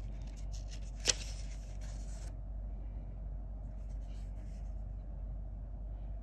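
Rustling and handling of a paper tarot guidebook as it is closed and set down, with one sharp tap about a second in. It stops after about two seconds, leaving a steady low hum.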